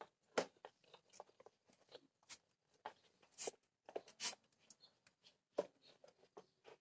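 Faint, irregular clicks, taps and scrapes of a Ford Figo's pleated-paper panel air filter being pushed and settled by hand into its plastic airbox housing.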